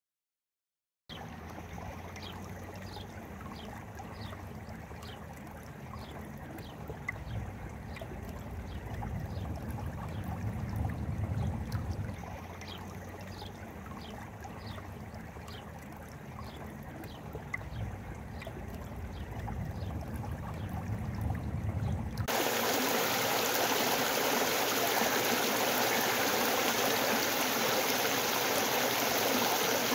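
River water flowing: a steady rushing with a low rumble and a short high chirp repeating about twice a second, then about 22 seconds in it switches abruptly to a louder, hissing rush of water heard close up.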